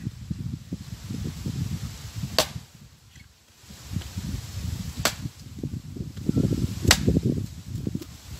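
Wood being chopped: three sharp strikes roughly two to two and a half seconds apart, over a low, uneven rumble.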